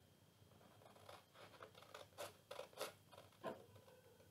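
Large metal scissors cutting through a thick paper sheet: a run of faint, irregular snips starting about a second in.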